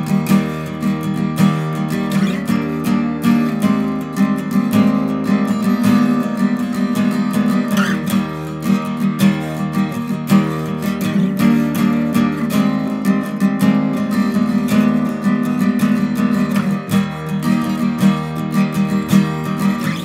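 Background music: a strummed acoustic guitar playing steadily.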